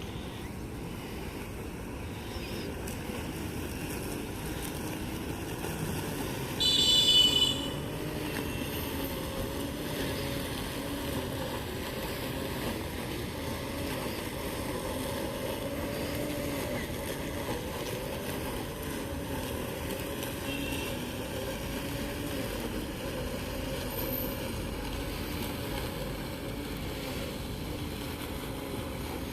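Robotic lawn mower's electric cutting motor running steadily through grass, its hum wavering up and down in pitch. About seven seconds in, a short high-pitched tone sounds, the loudest moment.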